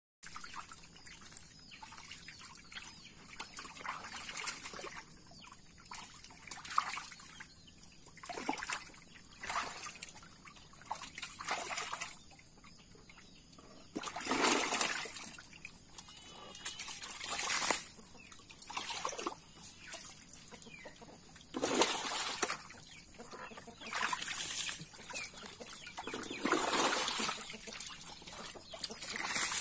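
Muddy water splashing and pouring in repeated surges, each a second or two long, as it is bailed by bucket and scooped by hand at the bottom of a shallow dug well. Chickens are clucking as well.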